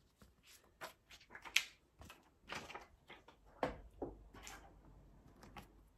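Irregular small clicks, taps and light rubbing from hands handling a plastic eyeshadow palette, about a dozen short knocks spread unevenly, the loudest about a second and a half in and near the middle.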